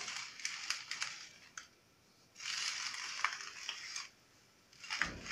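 Three short bursts of crinkling, crackling noise, each with small clicks. The last burst ends with a low bump.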